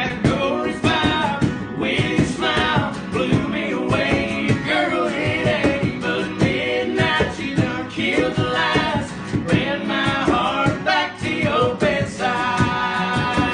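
A male voice singing a country song over strummed acoustic guitar.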